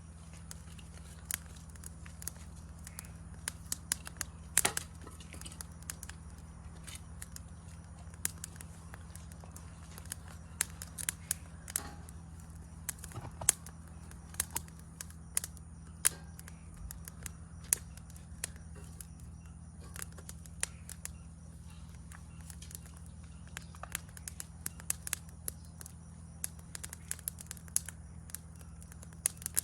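Campfire crackling, with sharp pops of burning wood at irregular intervals over a steady low background.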